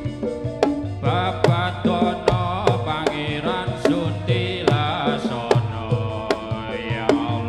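Live Javanese gamelan accompaniment for a folk dance: a steady beat of sharp drum strikes about twice a second over ringing metallophone and gong tones. About a second in, a wavering melody line enters on top.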